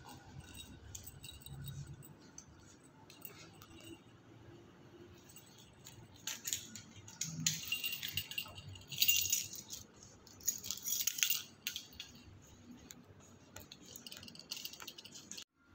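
Faint metallic jingling and rattling in three short clusters around the middle, over a low background.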